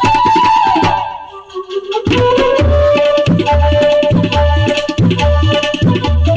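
Live flute and tabla. The flute holds a high note and slides down while the tabla briefly drops out. About two seconds in, the tabla comes back in a steady rhythm of deep bass strokes and lighter strokes under a long held flute note.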